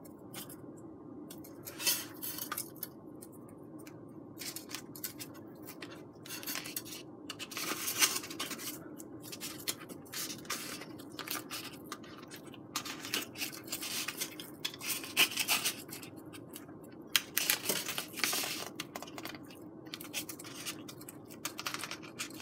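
Foamboard pieces handled and pressed together by hand while hot glue sets: irregular light scratches, rustles and small clicks, over a steady low hum.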